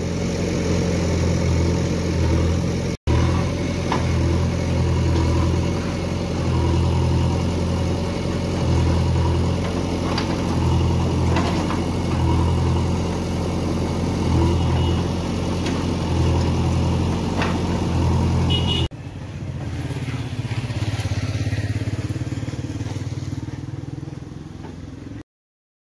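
Diesel engines of a JCB backhoe loader and a tractor running, the level swelling and easing every second or two. About 19 s in it changes to a quieter engine sound, which stops shortly before the end.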